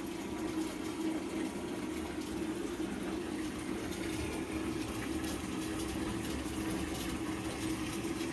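Water running steadily from a bath tap into a tub of bubble bath as it fills.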